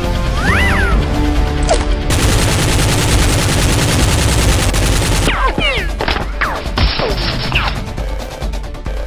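Action music, then a long burst of rapid automatic gunfire sound effects starting about two seconds in and lasting about three seconds, followed by shorter bursts mixed with falling whistle-like tones.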